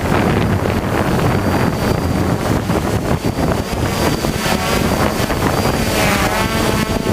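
Strong wind buffeting the microphone in a dense rumble, with a faint steady high-pitched whine throughout and wavering tones near the end.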